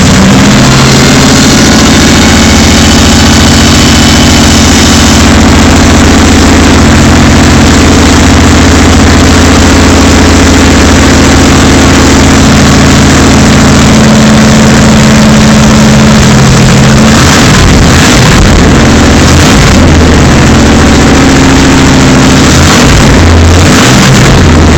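Freshly rebuilt 454 Chevy big-block V8 running with no exhaust system fitted. It is loud enough to overload the phone's microphone. The engine holds a steady idle, then its speed wavers somewhat past the middle.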